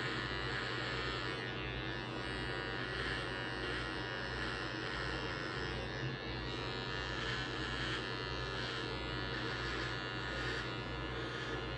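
Electric finishing trimmer buzzing steadily as it is pushed upward through the hair of a fade.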